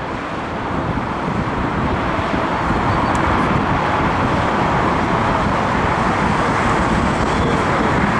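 Airbus A330-200 jet airliner passing low on final approach to land, a steady rushing roar of engines and airflow that grows louder over the first few seconds and then holds.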